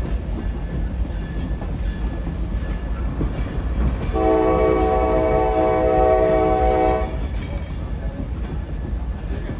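Steady low diesel-locomotive rumble. About four seconds in, an Amtrak ALC-42 Charger's multi-note air horn sounds one steady blast of about three seconds, then cuts off.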